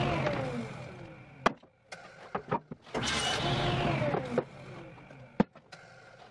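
Table saw running, then winding down with a falling whine as the blade coasts to a stop. This happens twice, with sharp knocks of wood pieces being handled in between.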